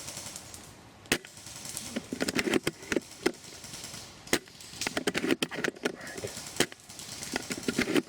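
Three sharp cracks about three seconds apart, each followed by a short run of clattering and rustling.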